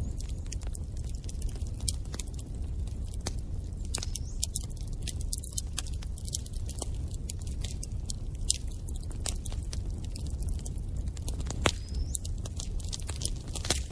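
Wood fire burning in a fireplace, crackling with irregular sharp pops and snaps over a steady low rumble of flames.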